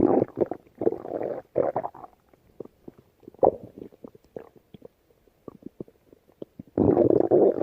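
Hungry human stomach growling and gurgling in short irregular bursts, with small pops between them and a longer, louder growl near the end.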